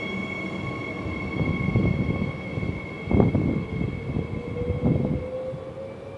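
Regio 2N double-deck electric train pulling away: a steady high whine from its traction equipment, joined by a lower tone that slowly rises in pitch as it accelerates. Irregular low rumbles come through it, the loudest about three seconds in.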